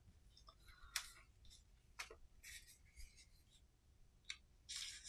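Faint rustling and a few light ticks of paper instruction leaflets being handled and shuffled, with a soft rustle in the middle and another near the end.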